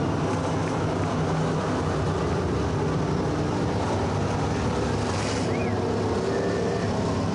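A pack of dirt late model race cars with crate V8 engines running at speed on the track, a steady loud drone of several engines overlapping.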